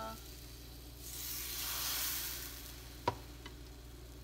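Chickpea-flour batter sizzling on a hot tawa griddle as it is spooned on and spreads, the hiss swelling about a second in and then easing off. A single sharp tap about three seconds in.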